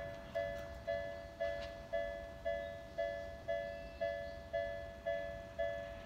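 Japanese level crossing's electronic warning bell ringing, a two-tone ding repeating steadily about twice a second. It is warning of an approaching train.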